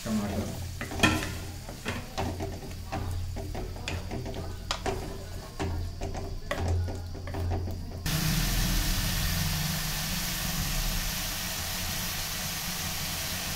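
Wooden spatula stirring and scraping chopped tomatoes into onion-masala paste in a steel kadhai, with frequent clicks and knocks against the pan over a frying sizzle. About eight seconds in, a steady even sizzling hiss abruptly takes over.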